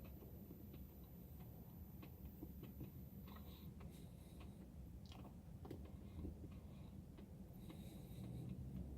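Faint chewing of a marshmallow Peeps candy: soft, irregular little mouth clicks over a low room hum.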